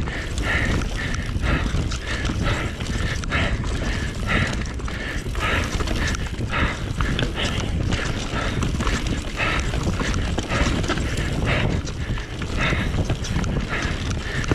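Mountain bike riding fast down a dirt forest trail: knobby tyres rumbling over the ground and the bike clattering and rattling over bumps and roots, in a continuous series of short knocks. Wind buffets the microphone throughout.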